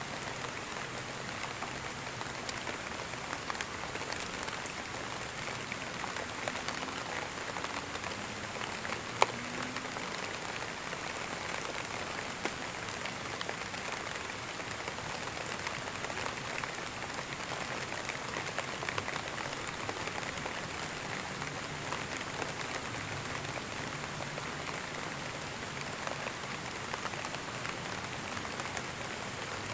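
Steady rain falling, with individual drops ticking on a surface and one sharper, louder drop tick about nine seconds in.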